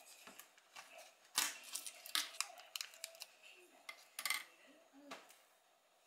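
Plastic food tub being opened and handled: a series of sharp plastic clicks and crackles as the lid is pried off, the loudest about one and a half seconds in and again around four seconds.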